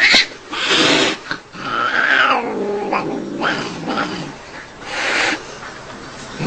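Cats yowling and growling in drawn-out, wavering calls, one falling in pitch about two seconds in, with short hissing bursts about half a second in and again about five seconds in.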